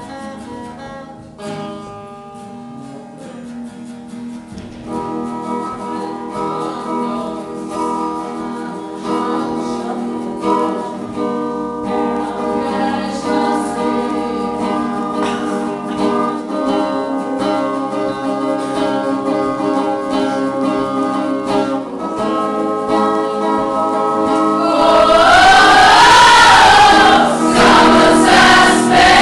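A group of voices singing an Irish-language song together to acoustic guitar. The sound grows louder about five seconds in and is loudest near the end.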